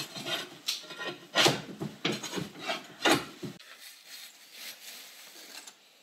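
Irregular scraping and knocking of metal mounting hardware being handled and fitted, several sharp scrapes over the first three and a half seconds, then only faint handling noise.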